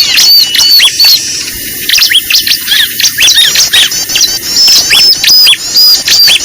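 Bird-lure recording of a flock of small birds calling at once: loud, dense, rapid high chirps overlapping without a break, the kind of noisy call track played to draw small birds in for trapping.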